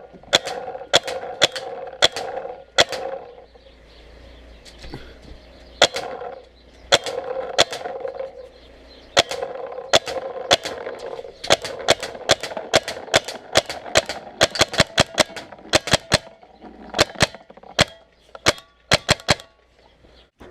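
Tippmann 98 Custom paintball marker being fired semi-automatically, sharp pops spaced about a second apart at first, then quicker strings of several shots a second in the second half.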